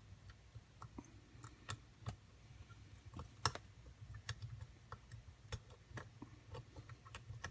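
Small irregular clicks and ticks of a hook pick working the pin stacks of a custom-pinned ABUS padlock under light tension, with the loudest click about three and a half seconds in, over a low steady hum.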